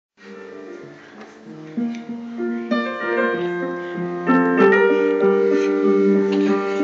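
Music: a piano or keyboard intro, sustained notes layering one on another and growing steadily louder.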